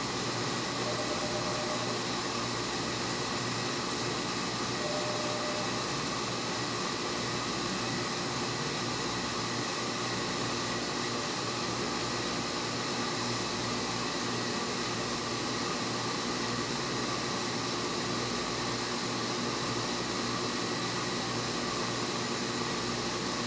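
Induction heating equipment running under power during a soldering cycle: a steady fan-like noise with a constant layered hum that does not change.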